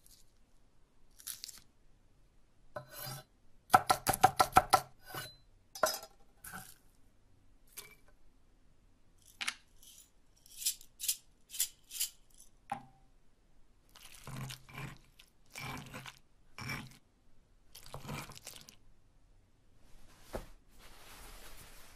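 Dice and green glass Christmas-bulb pieces clicking and clinking in a stone molcajete, with a quick run of about ten sharp clicks around four seconds in and another cluster of clicks in the middle, then several longer crunching strokes near the end.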